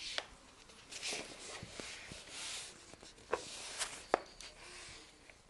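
Rustling of a nylon pop-up cat tunnel being disturbed, with a few sharp clicks, the loudest about four seconds in.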